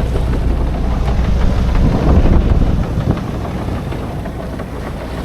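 A sailing yacht's engine running steadily as the boat moves under way, with wind buffeting the microphone.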